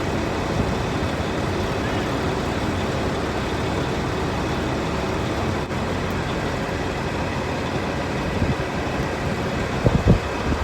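Steady vehicle rumble with road noise, with a few short knocks near the end.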